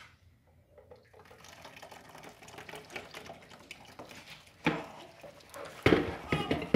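Curuba juice trickling and dripping through a plastic sieve into a pot as the pulp is pressed, with louder rustling noises near the end.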